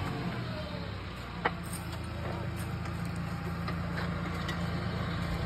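Tractor engine idling steadily, with a single sharp click about a second and a half in.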